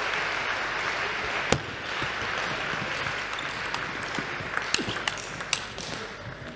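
Table tennis ball clicking on bats and table in a rally: one sharp click about a second and a half in, then a quick run of clicks near the end. Crowd noise fades away in the first seconds.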